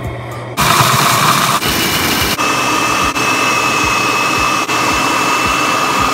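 Food processor motor running at high speed with a steady whine, chopping dates and sunflower seeds into raw brownie dough. It starts abruptly about half a second in, shifts in pitch once or twice in the first couple of seconds, and stops suddenly at the end.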